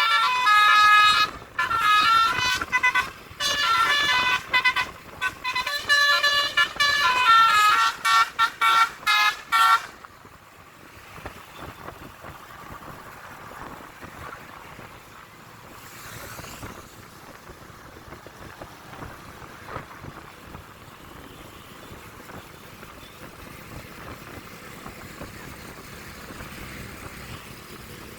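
Multi-tone 'telolet' bus air horn playing a rapid tune of short, loud blasts for about the first ten seconds, several tones sounding together and changing pitch from note to note. It then stops suddenly, leaving steady, quieter road and traffic noise.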